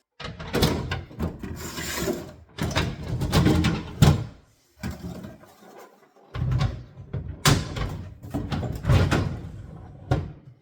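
A new refrigerator's parts and packaging being handled: scraping and rustling with repeated knocks and clatters, in two bouts with a short pause midway.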